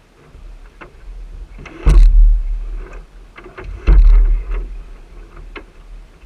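Noise of a 420 sailing dinghy under way, heard from a deck-mounted camera: two loud, sudden low rushes about two seconds apart, each lasting about a second, with lighter knocks in between, from water slapping the hull and the boat working through the chop.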